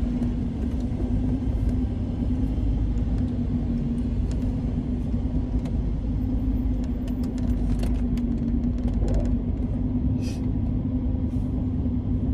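Car running on the road, heard from inside the cabin: a steady low engine and road rumble with a constant drone, and a few light clicks in the second half.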